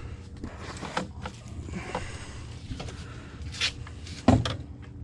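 Scattered knocks and rustling from handling on a small fiberglass boat among mangrove branches, with one loud thump a little over four seconds in.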